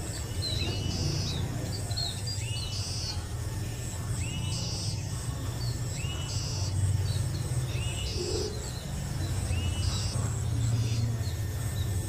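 Bird chirps, the same short phrase repeating about every two seconds, over a steady low hum.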